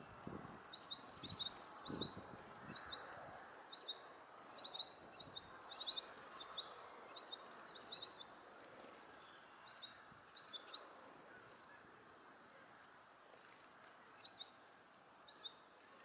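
Small songbirds giving short, high chirps in quick clusters, one or two clusters a second for much of the time, thinning out near the end. There are a few soft low thumps in the first few seconds.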